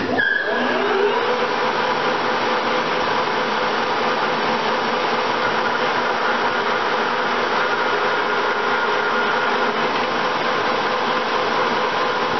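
DoAll Model 16 engine lathe starting up. The headstock gear whine rises in pitch over the first second, then the spindle and gearbox run with a steady, loud mechanical whine.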